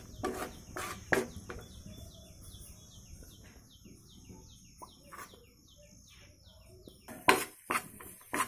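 A spatula knocking and scraping against a pan while chickpea flour is stirred and roasted in ghee. Through the middle a bird chirps in quick, short falling notes, about three a second.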